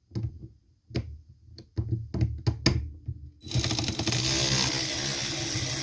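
Hand tools and metal parts clinking and clicking several times, then a loud continuous rasping noise for about three seconds starting a little past halfway.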